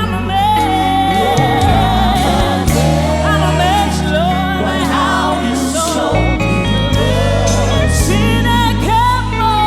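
Live gospel worship music: singers holding long, wavering notes over sustained bass and keyboard chords from the band.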